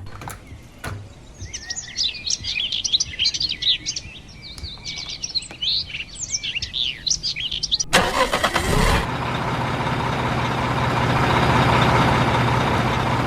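Birds chirping busily for about six seconds. Then, about eight seconds in, a vehicle engine starts and runs steadily with a low hum.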